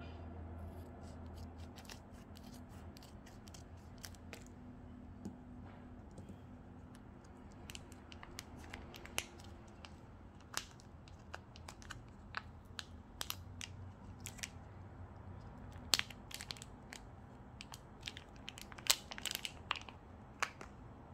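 Scissors snipping open a vacuum-sealed plastic egg packet, then the thin plastic film crinkling and crackling in scattered sharp clicks as it is peeled off the egg by hand, busiest in the second half.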